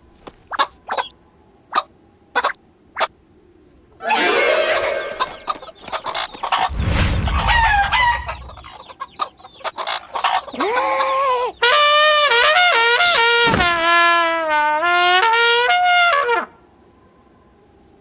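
Cartoon chicken sound effects: a few short taps, then a noisy rush with squawks, ending in a long drawn-out rooster crow that wavers in pitch.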